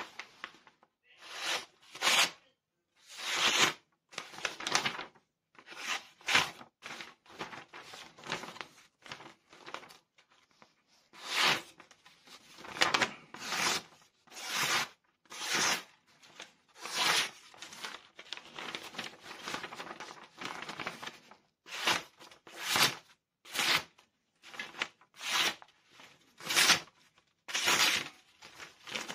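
A First Blood survival knife by Daniele Mauro slicing through hand-held sheets of paper in a sharpness test of its edge. Each cut is a short papery rasp, one or two a second, in a long run of cuts.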